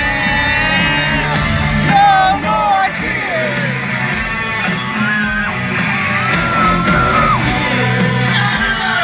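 A heavy rock band playing live through a large concert PA, heard loud from within the crowd, with a lead melody line gliding between notes over the band.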